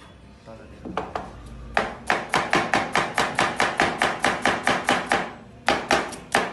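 Kitchen knife chopping fast and evenly on a cutting board, about six strokes a second, with a brief break near the end before the chopping resumes.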